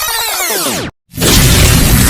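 Electronic intro sound effects: a cluster of sweeping synthetic tones cuts off suddenly about a second in. After a brief gap, a loud, steady rushing boom with a heavy low rumble begins.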